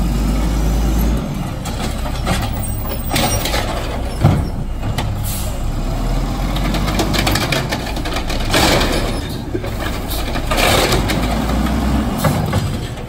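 Automated side-loader garbage truck's diesel engine running and revving to drive the hydraulic arm as it lifts and empties a cart. There is a sharp knock about four seconds in, and bursts of hissing and clatter later.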